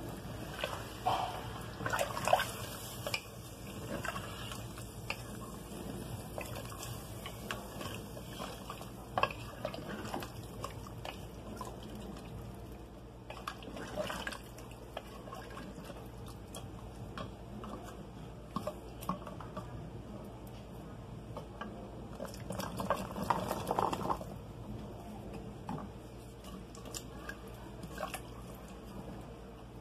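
Wooden spoon stirring a liquid mocotó stew in a metal pressure cooker: wet sloshing with irregular clicks of the spoon against the pot. It grows louder about two seconds in and again for a couple of seconds past the twenty-second mark.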